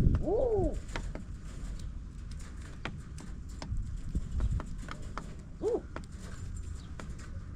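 Flock of farm birds feeding: many sharp clicks and taps of pecking at scattered feed, with two short rising-and-falling bird calls, one about half a second in and one near six seconds.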